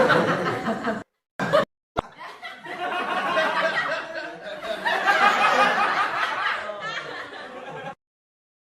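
Stock laughter sound effects: a burst of laughter that cuts off about a second in, a brief snippet of laughter, then a longer stretch of laughter lasting several seconds that stops abruptly near the end.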